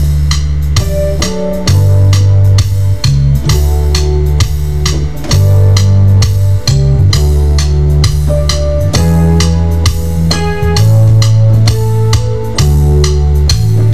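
Sequenced studio music: a programmed drum-kit beat with a stepping bass line and keyboard parts, playing at a steady tempo.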